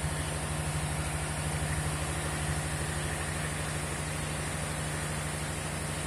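Sugarcane crushing mill of a small gur (jaggery) plant running: a steady, fairly loud machine hum with a fast low throb.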